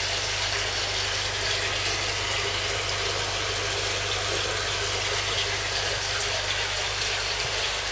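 Steady rush of running water over a low, even pump hum, unchanging throughout.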